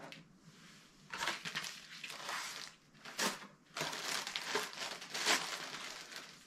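Clear plastic zip-lock bag crinkling in the hands as it is handled and opened, in irregular crackly bursts.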